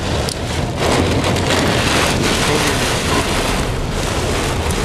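Heavy rain beating on a car's roof and windows, heard from inside the cabin with wind noise: a dense steady wash of noise dotted with many small sharp hits.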